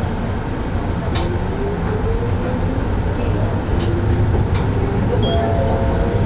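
Chitetsu Tateyama Line train running steadily: a continuous low rumble of wheels on rail, with a faint whine that slides in pitch and a few sharp clicks.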